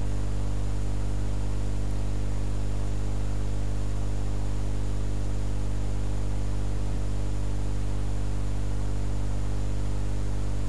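Steady electrical mains hum with many evenly spaced overtones and a constant hiss, unchanging throughout: the background noise of the voice-over recording setup.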